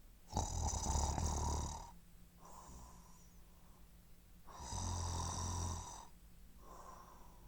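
A person snoring: two loud snores about four seconds apart, each lasting about a second and a half, with a softer breath out after each.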